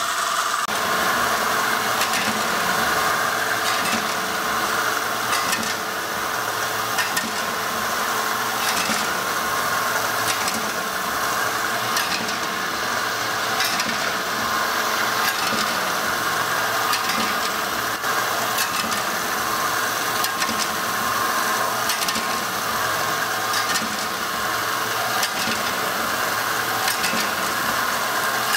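PM 150B3 T vertical form-fill-seal packaging machine running, a steady mechanical hum with a short click about every second and a half as its pneumatic sealing jaws cycle, making mint candy packets.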